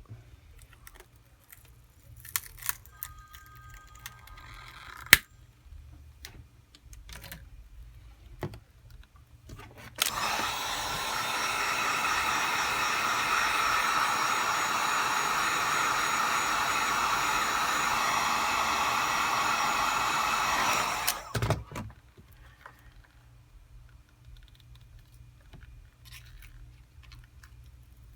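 Scattered small clicks and taps on the phone, then an electric hot-air blower starts about ten seconds in, runs steadily for about eleven seconds and cuts off. It is heating the Galaxy S7's back glass to soften the adhesive around its edges.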